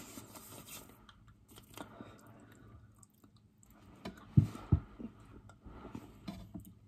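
A person chewing food with faint wet mouth clicks, and two short, loud thumps close together about four and a half seconds in.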